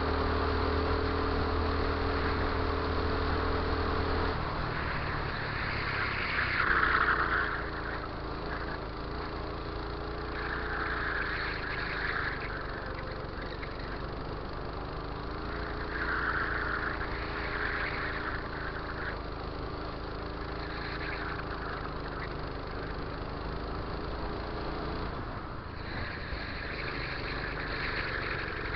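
Go-kart engine running at race speed: steady for the first few seconds, then its pitch rising and falling again and again as the kart speeds up and slows through the corners.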